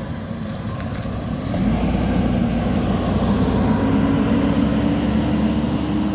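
Large diesel coach engine running as the bus moves off, getting louder about a second and a half in, with a steady low drone that rises slightly in pitch.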